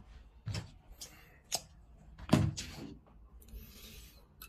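Handling noises of a metal slingshot band-tying jig and its rubber bands: a few light clicks and knocks, the loudest a little over two seconds in, and a brief rustle near the end.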